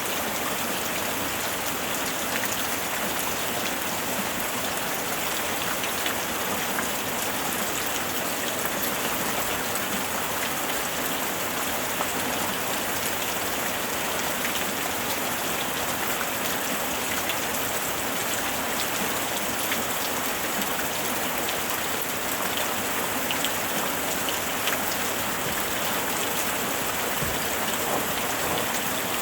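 Steady rain falling, an even hiss with many small drops pattering on a surface, with no thunder.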